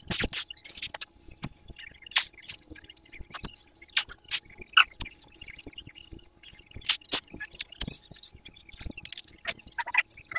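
Irregular sharp clicks and light taps, several a second, over a faint steady hum.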